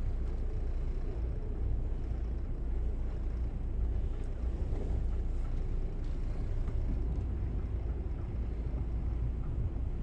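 Twin diesel engines of a Bayliner 4788 motor yacht running at idle during low-speed maneuvering: a steady low rumble.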